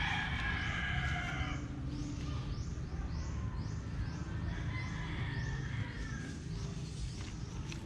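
A rooster crowing, one call ending about a second and a half in and a fainter one about five seconds in. Under it are a steady low rumble and a high chirp repeating about twice a second.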